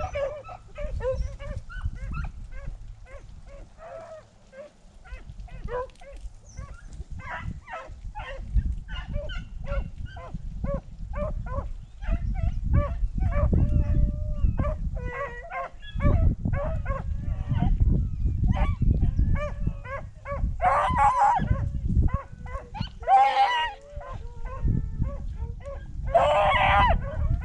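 Pack of beagles baying while running a rabbit: many short overlapping barks and bawls, several a second, with three longer, louder bawls in the last third, over a low rumble.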